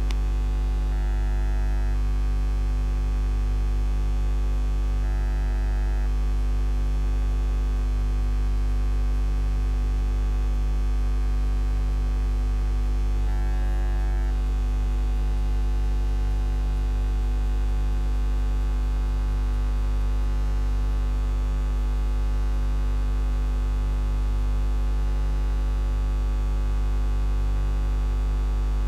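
Low, steady electrical mains hum with a faint hiss, about as loud as the commentary around it: an electrical fault in the audio feed, such as a ground loop.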